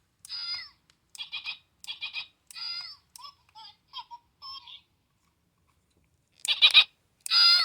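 McDonald's 2010 Shrek Forever After Gingy toy playing its recorded catchphrases through its small built-in speaker: a high-pitched, thin voice in short bursts. It pauses for about a second and a half, then comes back louder near the end.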